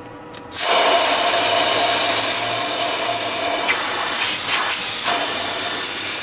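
Compressed air from a shop air line rushing through the heater core of a 2001 GMC truck, starting suddenly about half a second in and holding loud and steady with a faint whistle under it. This is a reverse-flow air blow-out meant to clear debris clogging the core.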